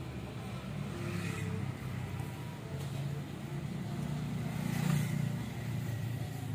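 A motor vehicle's engine rumbling past on the street, swelling to its loudest about five seconds in and then fading.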